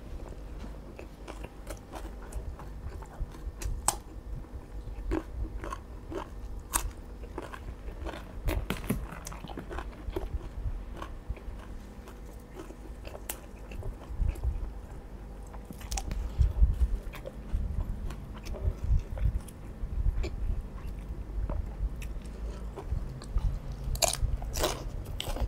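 A person chewing and crunching mouthfuls of fresh leafy vegetables and raw shrimp salad close to a clip-on microphone, with many sharp crunches and wet mouth clicks, and a run of louder crunches near the end.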